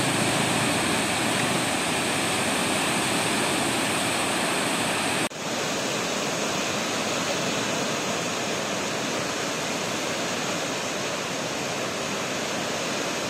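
The Trishuli River in flood, its swollen muddy water rushing past in a steady noise of turbulent water. The sound cuts out for an instant about five seconds in and resumes slightly quieter.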